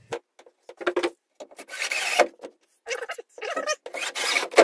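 Cordless drill with a long bit running in several short, stop-start bursts, boring into the plywood body.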